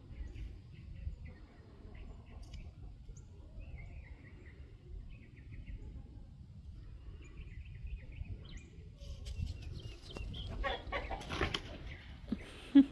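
Faint bird calls over a low rumble, with a stretch of rustling about ten seconds in and a short sharp thump near the end.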